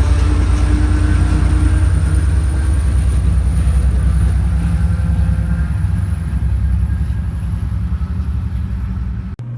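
Amtrak diesel passenger locomotive running at the station, a loud low engine drone with a thin high whine over it, easing slightly in level; it cuts off suddenly near the end.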